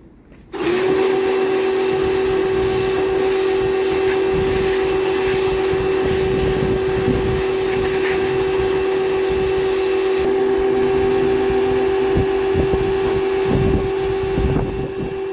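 AVA Go P40 electric pressure washer running and spraying: its motor and pump hum steadily under a loud hiss of water jet. It starts suddenly about half a second in.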